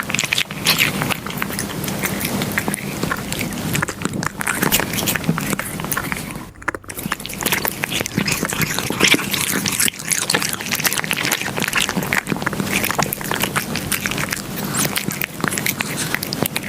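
Cat eating close to the microphone: continuous wet chewing and smacking made of many quick clicks, with a brief pause about six and a half seconds in.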